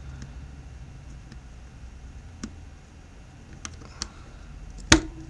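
A few light plastic clicks and ticks as a smartphone's internal parts are handled and pressed into place during reassembly, then one sharp, louder click near the end.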